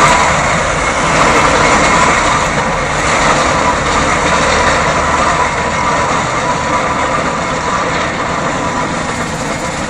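Road traffic, with a car and a van passing and a Fowler steam roller moving away up the road: a steady road-noise rumble that slowly fades.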